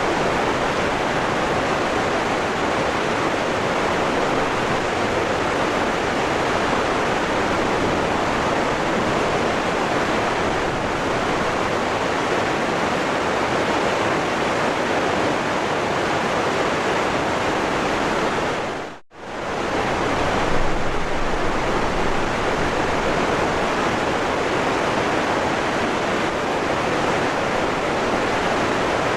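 Waterfall rushing in a steady, even wash of water noise. About two-thirds of the way through it fades out almost to nothing for a moment and comes straight back.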